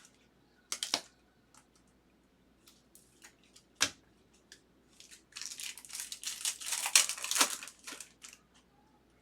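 Trading-card pack wrapper being torn open and crinkled: a few sharp taps and clicks, then a dense rustle of about three seconds beginning about five seconds in.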